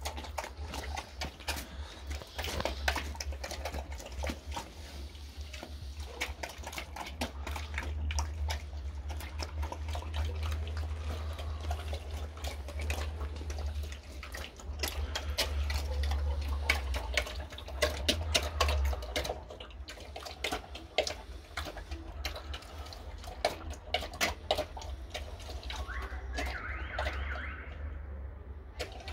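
A pig eating liquid kitchen slop from a trough: wet slurping and chewing with many short smacks.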